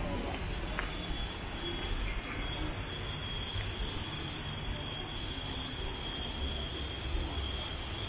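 Steady high-pitched insect drone that starts just after the beginning and holds without a break, over low outdoor background noise.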